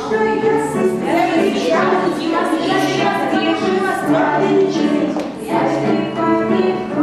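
Music with singing: a song with several voices over an accompaniment, playing steadily.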